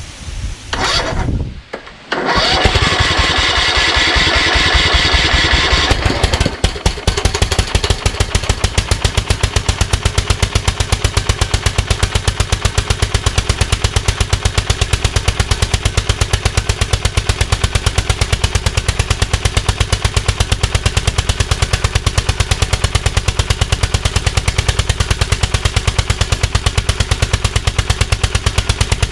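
Kohler Courage engine on a repowered Craftsman YS4500 lawn tractor cranked by its starter. It catches about two seconds in and runs, harsher and brighter for the first few seconds, then settles into steady running with evenly spaced firing pulses.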